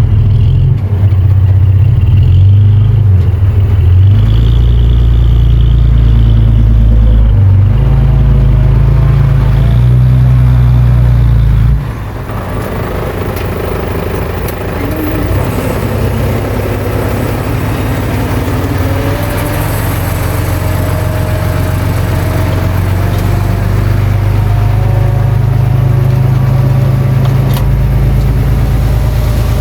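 Bulldozer's diesel engine running hard under load for about twelve seconds. It then drops suddenly to a quieter run that slowly builds again toward the end.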